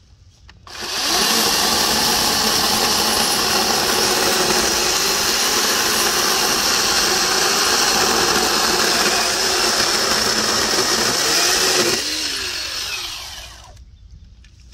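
Ridgid 18-volt cordless electric chainsaw spinning up about a second in and sawing steadily through a five-to-six-inch ash log for about eleven seconds. The motor then winds down with a falling whine and stops.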